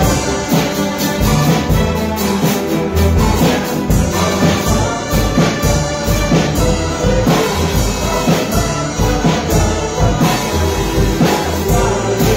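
Filipino rondalla ensemble playing together: bandurrias, octavinas, laúds and guitars plucked in quick strokes over a double bass line.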